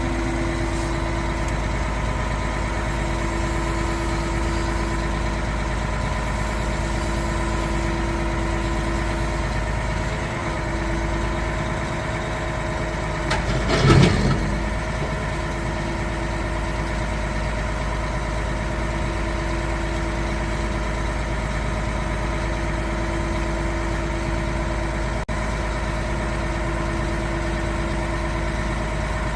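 Concrete pump truck's diesel engine idling steadily, with a constant hum of several steady tones. About halfway through there is one brief louder whoosh lasting under a second.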